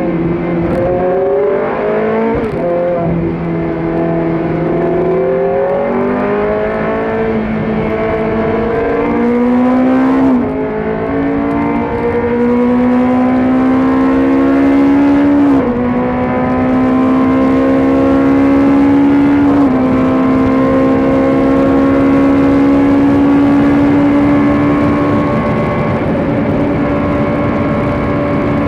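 GT3 race car engine heard from inside the cockpit, accelerating hard and shifting up through the gears: the pitch climbs steadily and drops back sharply at each upshift, about every four to five seconds.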